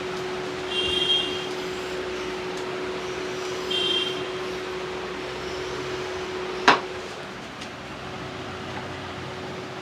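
Steady street background noise with a low hum, two short high-pitched beeps about three seconds apart, and a single sharp crack or slap about two-thirds of the way through, after which the hum stops.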